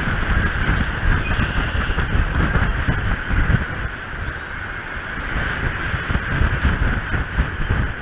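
Wind buffeting the outdoor nest-camera microphone: a steady rushing with low, gusty rumbling that rises and falls.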